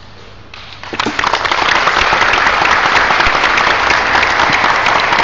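Audience applauding, starting about a second in and holding steady and loud.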